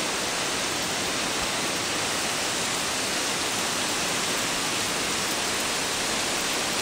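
Nachi Falls, a tall waterfall, pouring down in a steady, unbroken rush of falling water.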